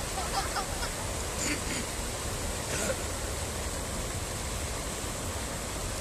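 Water rushing steadily over a dam: a continuous even rush.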